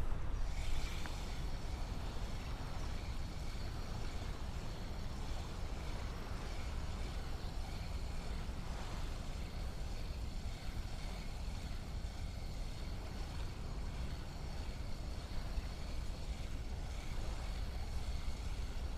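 A steady low rumbling noise with no distinct events, and a faint steady high hum above it.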